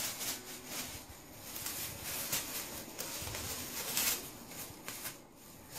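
Thin plastic bag crinkling and rustling in irregular crackles as a kitten claws at it and hangs from it.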